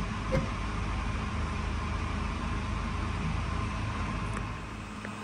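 Stratasys Objet260 Connex3 3D printer standing powered but idle, its fans and internal machinery giving a steady hum and hiss. A light click comes about half a second in, and the noise drops a little shortly before the end.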